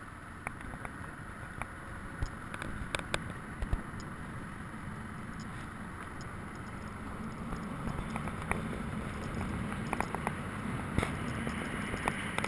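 BMW motorcycle riding a rough red dirt track: steady low engine and tyre noise with scattered sharp knocks and rattles from bumps and stones, growing a little louder in the last few seconds.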